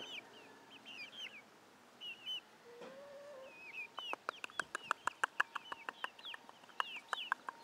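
Young chickens peeping with short, high, hooked chirps throughout. From about four seconds in, a rapid run of sharp clicks, several a second, runs nearly to the end.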